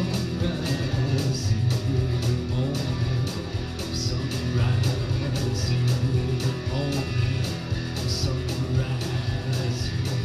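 Two amplified electric guitars playing an instrumental rock passage with rhythmic strumming.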